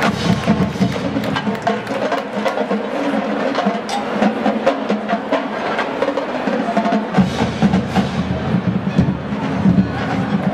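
Marching band drumline playing: snare drums and tenor drums in rapid stick patterns over bass drums.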